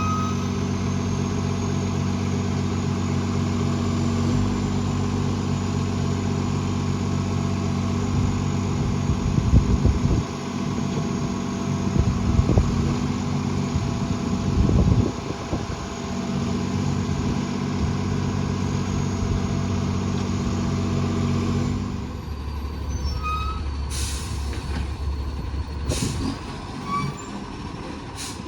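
Recycling garbage truck's diesel engine running with a massive exhaust leak, holding a steady note with a few knocks partway through. About 22 seconds in the engine note drops, followed by several short sharp hisses.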